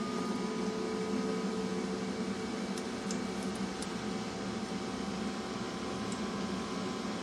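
Radial extractor fan of a homemade tornado machine running steadily: a constant whirring hum with a few steady tones over the rush of air being drawn up through the vortex.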